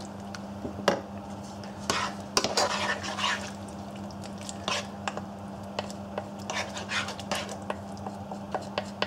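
Wooden spatula stirring a thick, creamy sauce with meat-substitute strips and mushrooms in a stainless-steel pan, giving irregular scrapes and soft clicks against the pan. A steady low hum runs underneath.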